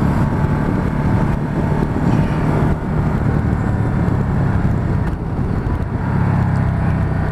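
Ducati Multistrada 1260 S's V-twin engine running under way at road speed, with wind rush over the rider. The engine note dips briefly about three seconds and five seconds in.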